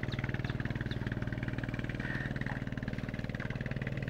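An engine running steadily at a constant idle, with a fast even beat.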